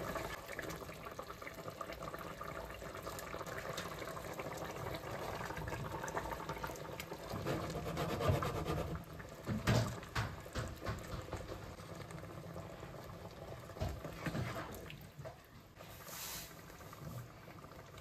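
Liquid pouring and sloshing into a pot of simmering beef pulao base. About halfway through, soaked rice is tipped in with wet splashes and knocks against the pot.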